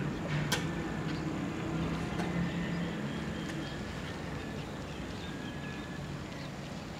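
A low engine hum, steady at first and fading away, with one sharp click about half a second in and a few faint ticks after it.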